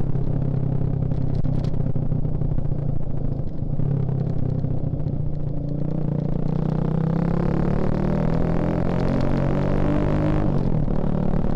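Suzuki Shogun Axelo R's single-cylinder four-stroke engine running under way at a steady pitch, then revving up with a steadily rising pitch from about halfway, which falls away abruptly near the end.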